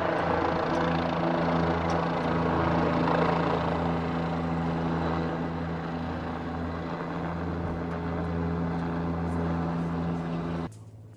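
Firefighting helicopter carrying a water bucket on a long line, flying low overhead with a steady rotor and turbine drone. The sound eases a little partway through and cuts off abruptly near the end.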